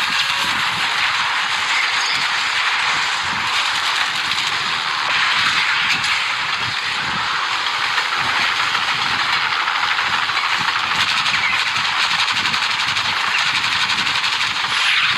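Sustained automatic machine-gun fire from an action film's soundtrack: a dense, steady rattle of rapid shots with no breaks.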